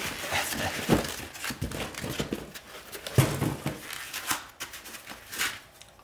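Cardboard box and foam packing inserts rustling, scraping and crinkling as a water pump is pulled out of them by hand, with a few sharp knocks, the loudest about a second in and just after three seconds.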